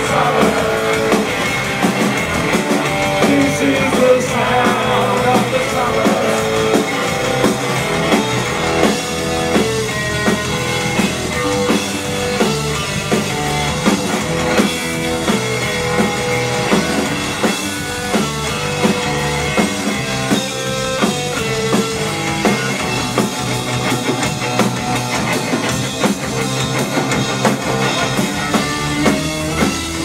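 Live punk rock band playing: electric guitar, bass guitar and drum kit, loud and steady, picked up by a small camcorder's built-in microphone.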